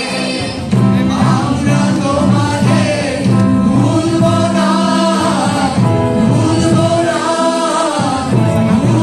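Mixed group of boys and girls singing a Bengali patriotic song together in long held notes, accompanied by harmonium, hand drums and acoustic guitar.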